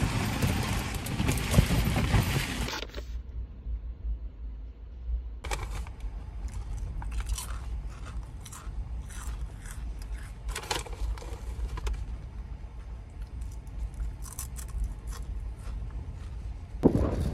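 Plastic snack bag crinkling and rustling while crisp seaweed chips are taken out and crunched, in scattered sharp crackles. It starts after a few seconds of steady hiss that cuts off suddenly about three seconds in.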